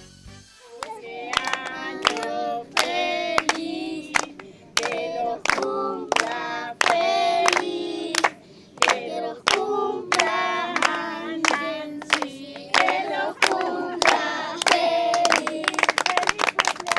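A group of children and adults singing a birthday song together, clapping along in a steady beat of about two claps a second. The clapping grows thicker near the end.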